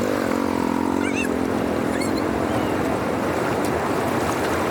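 Water rushing steadily through a storm-swollen drainage channel, with a few short bird chirps about a second and two seconds in. A low wavering hum sounds over the first couple of seconds and fades.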